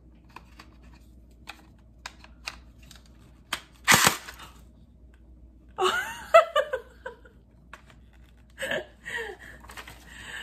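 Plastic parts of an electric gel ball blaster clicking as they are handled, then one short, loud firing burst from the blaster about four seconds in, a sign that its battery holds some charge. A woman's startled exclamation and laughter follow.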